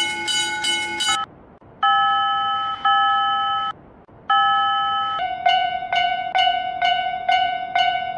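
Animated Japanese railroad-crossing alarm ringing its 'kan-kan' bell about three strokes a second, stopping about a second in. Then two long steady electronic tones with a short silence between them, the first shifting pitch partway. Then from about five seconds in, a lower-pitched crossing alarm rings in the same rhythm.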